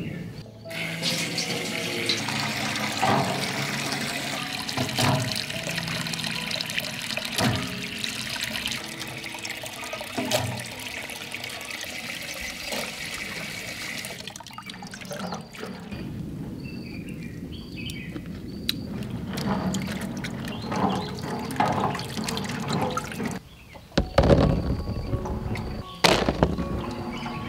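Tap water running into a stainless steel sink basin while plums are washed in a bamboo basket; the flow stops about halfway. Near the end, plums tumble onto a woven bamboo tray in a quick run of knocks, over background music.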